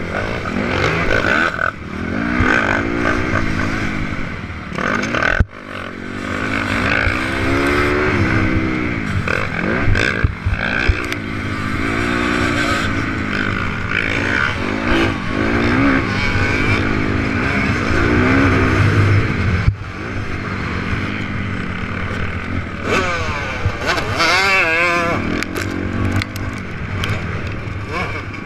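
Honda CRF250R's 250 cc four-stroke single-cylinder engine revving up and down over and over while ridden on a dirt motocross track. The throttle is chopped sharply a couple of times, about five seconds in and again near twenty seconds.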